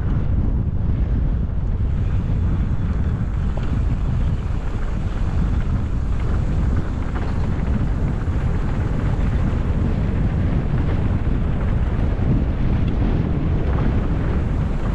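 Wind buffeting the microphone of a moving camera: a loud, steady low rumble.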